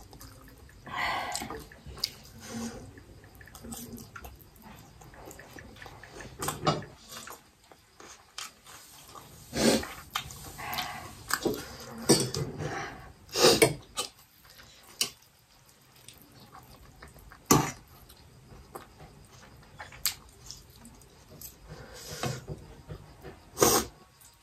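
Eating noodles: slurping and chewing, with irregular sharp clinks of forks against steel plates.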